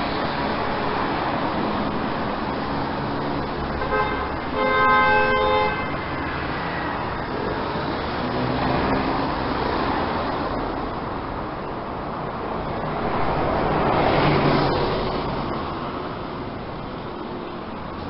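Road traffic noise with a car horn sounding once for about a second and a half, about four seconds in. A vehicle passes, loudest around fourteen seconds in.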